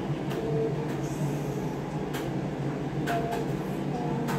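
A steady low hum runs throughout, with several light clicks and taps over it.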